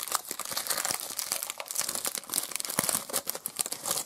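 Foil wrapper of a 2006 Bowman Chrome football card pack being torn open and crinkled by hand: a dense crackle of many sharp crinkles.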